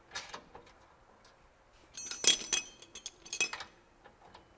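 Steel hand tools clinking: a wrench, socket and ratchet knocking against each other and the bolt as they are fitted, in a quick cluster of ringing clinks about two seconds in and a few more near three and a half seconds.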